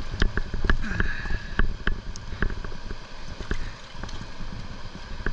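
Irregular sharp knocks and clicks of a landing net and footsteps on riprap rocks as a big flathead catfish is carried up the bank in the net, over a low steady rumble of wind and water.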